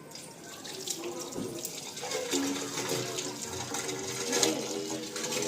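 Water running and gurgling in an opened-up hand pump, mixed with small clicks.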